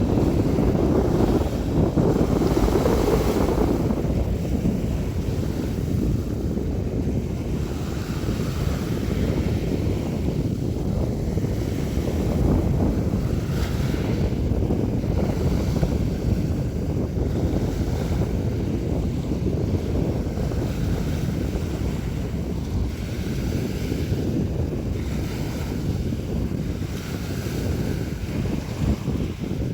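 Sea waves washing and breaking continuously, with a louder surge of surf in the first few seconds. Wind rumbles on the microphone underneath.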